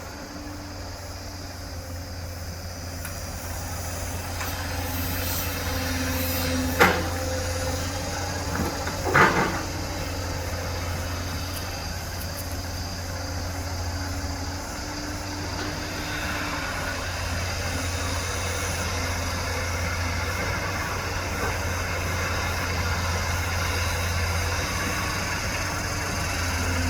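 Diesel engine of a JCB excavator running steadily with a low drone. Two sharp knocks about two seconds apart come about a quarter of the way in.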